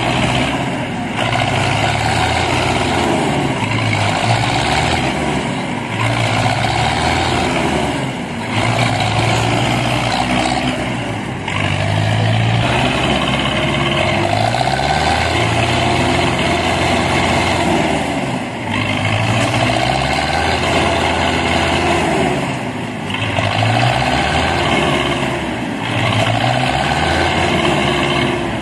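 Diesel tractor engine revving hard under heavy load, its pitch surging up and falling back every two to three seconds, as a Belarus MTZ tractor strains in deep mud.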